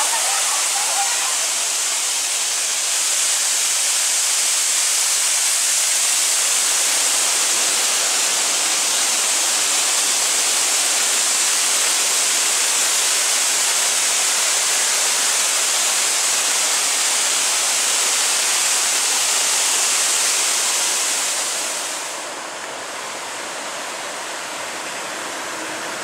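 Water of a waterfall and rocky stream falling and cascading over rocks: a steady, loud rushing, bright and hissy in tone. It drops to a softer, duller rush about 22 seconds in.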